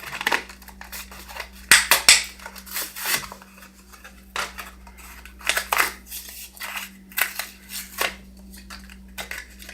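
Hot Wheels car blister pack being opened by hand: irregular crackling and snapping of stiff plastic and cardboard, loudest about two seconds in.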